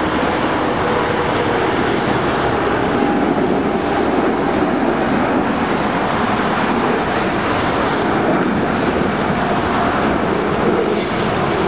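Jet engine noise from an Airbus A340-300's four CFM56 turbofans at climb power after takeoff, steady and loud.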